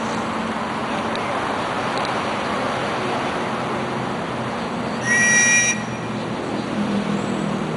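One short referee's whistle blast about five seconds in, lasting under a second, over steady background noise; in a penalty shootout it is the signal for the kick to be taken.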